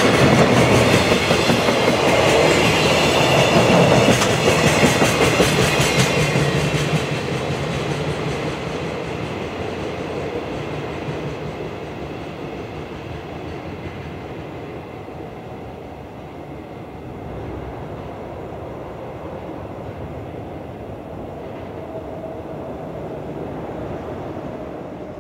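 Freight container train passing close by: wagon wheels clacking rhythmically over rail joints with a high wheel squeal for the first six seconds or so, then the rumble fades steadily as the train moves away.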